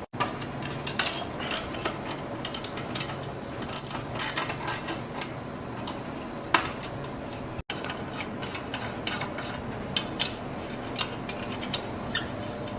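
Hand tools and small metal parts clicking and knocking irregularly while a fuel tank and carburetor are fitted to a Briggs & Stratton flathead engine.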